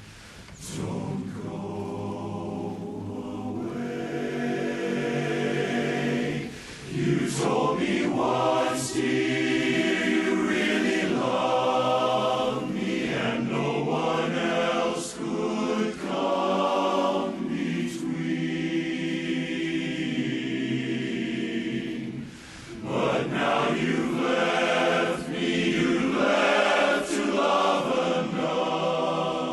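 Men's barbershop chorus singing a cappella in close harmony, with short breaks between phrases about seven seconds in and again past twenty seconds.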